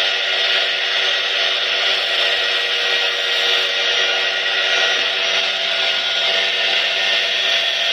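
Electric angle grinder with a sanding disc running steadily at full speed, whining, with the hiss of bamboo sticks being ground against the disc to shape them into pegs.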